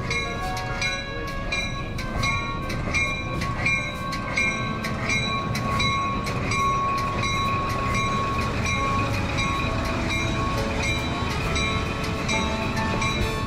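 Train rolling on the track: an even clicking about three times a second over a low rumble, with steady high-pitched tones running through it.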